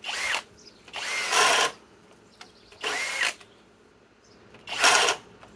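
Master Force Boost cordless hammer drill on speed 2 driving a 1-1/2-inch spade bit into wood in four short trigger pulls, the motor spinning up briefly and cutting off each time. The bit bogs down, too big to turn on the high-speed setting.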